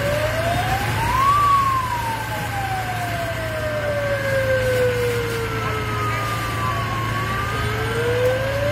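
Fire-engine sirens wailing, two tones sliding slowly up and down out of step with each other. The lower one peaks about a second and a half in, falls slowly for several seconds and starts rising again near the end, over a steady low hum.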